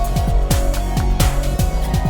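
Electronic background music with a steady, fast drum beat.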